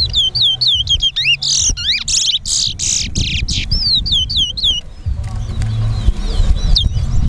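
Caged towa-towa seed finch whistling in a song contest: a rapid run of repeated falling whistles, about three a second, broken by louder buzzy phrases. The run stops about five seconds in, leaving a few fainter notes over a low background hum.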